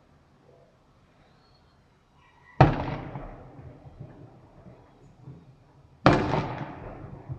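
Fireworks display: two shells burst with loud sharp bangs about three and a half seconds apart, each followed by a rumbling echo that trails off.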